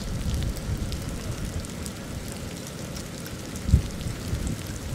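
Rain pattering, with fine drop ticks over a steady low rumble, and one dull thump about three-quarters of the way through.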